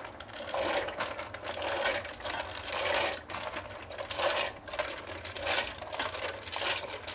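Dry elbow macaroni poured into a pot of boiling water, rattling and splashing in uneven bursts about once a second.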